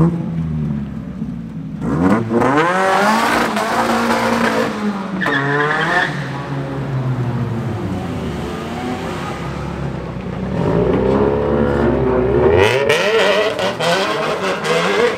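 Car engines revving hard in a tunnel, the pitch climbing and falling in sharp sweeps: one burst about two seconds in, with quick rising shifts near six seconds, and another from about eleven seconds in, with a lower steady engine note between them.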